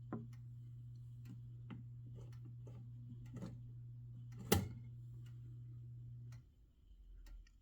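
Howard Miller grandfather clock's movement ticking, with scattered sharp clicks and one louder click about four and a half seconds in.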